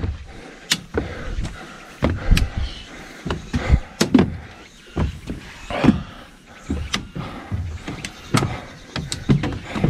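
Footsteps climbing steep stairs, with trekking-pole tips clicking against the steps: irregular knocks and clicks, a few to the second.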